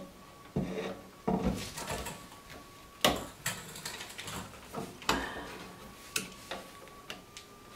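A plastic-cased 12-volt sealed lead-acid battery being pushed and wedged into a sheet-metal battery compartment among its wires: a handful of knocks, clunks and scrapes, the loudest about three seconds in.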